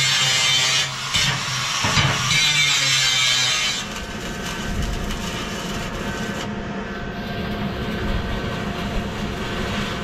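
A power tool working steel runs loudly for about four seconds, with a brief dip about a second in, then gives way to a quieter steady hum.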